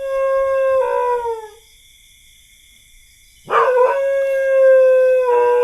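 Dog howling: two long howls, each held on one steady pitch and sliding down at the end, the second starting about three and a half seconds in and lasting longer.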